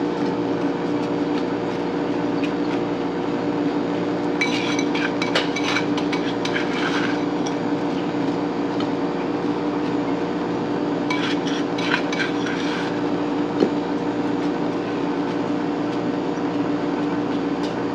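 Silicone spatula scraping and tapping against a small glass bowl as sugar is shaken out over blackberries, in two spells of light clinks and scrapes, over a steady hum.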